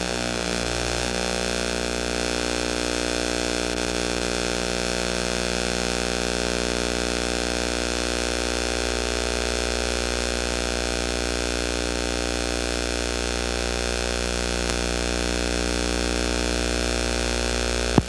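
Steady electrical mains hum, a buzz with many even overtones, holding at one pitch and level. A sharp click comes right at the end.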